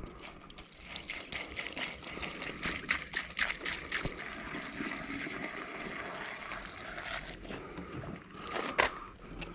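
Gasoline pouring from a plastic gas can through a funnel into a Kubota Z411 zero-turn mower's fuel tank, trickling and glugging unevenly at first, then running as a steadier stream. A couple of knocks near the end.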